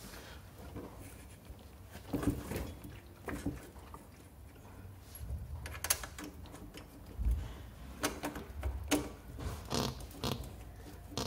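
Hand work on a scooter engine: irregular clicks, knocks and rubbing as parts and fasteners are handled around the transmission casing and rear shock mount, with a dull low thump about seven seconds in.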